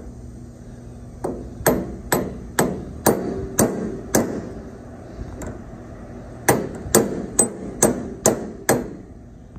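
Ball-peen hammer tapping a ball bearing onto a steel gear shaft, metal on metal, each strike with a brief ring. There is a run of about seven light taps, a pause of about two seconds, then six more quick taps. The heated bearing is being driven home onto the frozen shaft.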